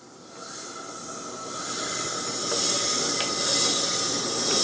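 Hand-cranked vertical sausage stuffer hissing as its piston is lowered onto the packed meat and trapped air escapes through the vent on top of the piston, with a faint whistle in the hiss. The hiss grows louder over the first couple of seconds, then holds steady.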